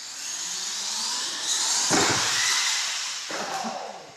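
Electric R/C monster truck motor and gears whining as it accelerates across a concrete floor, rising over the first two seconds, with a heavy thump about two seconds in, then fading.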